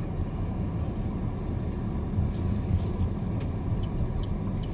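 Car cabin noise while driving: a steady low rumble of engine and tyres. Faint, evenly spaced ticks come about twice a second near the end.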